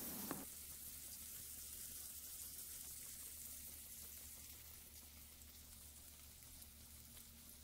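Grilled lamb chops and vegetables sizzling faintly in oil in a ceramic grill pan, fully browned and done. It is a soft, even crackle that fades slowly, over a low steady hum.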